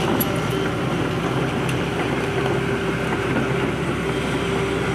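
SANY SY210C-9 crawler excavator's diesel engine running steadily as the machine tracks along a dirt road, with a steady drone.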